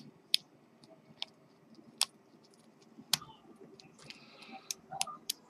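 Lock pick and tension bar working inside the pin-tumbler cylinder of an Ikonic deadbolt as it is picked, giving sharp metallic clicks at irregular intervals, about eight in all, several close together near the end.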